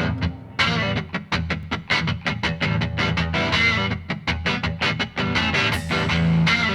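Music with guitar over a quick, steady beat.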